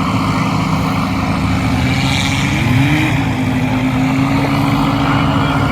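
Light aircraft's piston engine and propeller running steadily, then rising in pitch about two and a half seconds in as power is added and holding at the higher speed.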